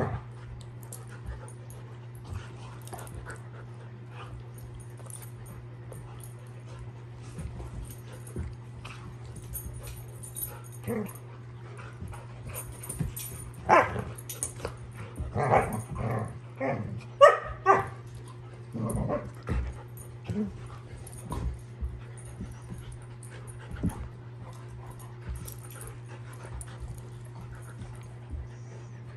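Irish Setter puppy and adult Irish Setter play-wrestling, with scattered short barks and yips and a loud flurry of them about halfway through.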